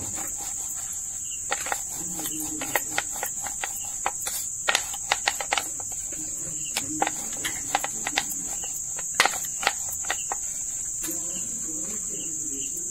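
A wooden rolling pin clicks and knocks irregularly against a steel plate as thin dough is rolled out. The clicks thin out after about ten seconds. Under them runs a steady high-pitched chirring of crickets.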